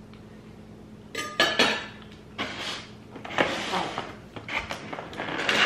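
A knife clinks down on a plate, followed by the crackling and clicking of a clear plastic clamshell bakery container being handled, in several irregular bursts.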